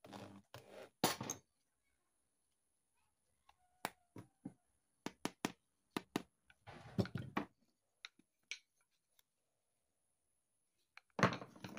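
An electric hand drill runs in a few short bursts as it bores into a drum-mallet head, stopping about a second in. After a pause come scattered light clicks and knocks from handling the two wooden drum mallets.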